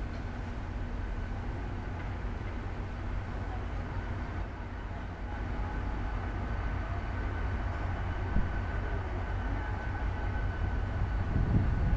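GT22 diesel-electric locomotive approaching slowly with its engine running: a steady low rumble that grows louder as it draws near.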